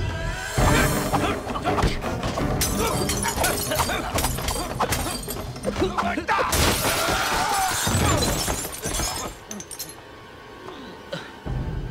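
Martial-arts film fight soundtrack: rapid punch and body-hit impacts over dramatic music, then a long crash of glass shattering and wood breaking about halfway through as a body smashes through glass panes and a wooden frame.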